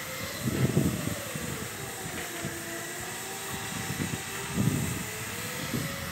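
Shipyard background noise: a steady hiss under a machine hum that slowly wavers up and down in pitch, with bursts of low rumble about half a second in and again near four and a half seconds.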